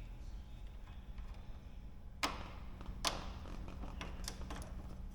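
Two sharp metallic clicks about a second apart, then a few fainter ticks, as a bolt is worked into the aircraft's undercarriage leg fitting, over a low steady hum.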